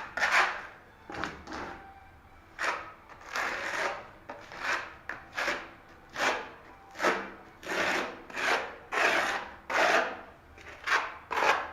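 Trowel scraping tile adhesive back and forth over the floor screed in repeated rubbing strokes, roughly one or two a second, with a short lull about two seconds in. The adhesive is being worked into the base as a thin first coat for good adhesion before the tile goes down.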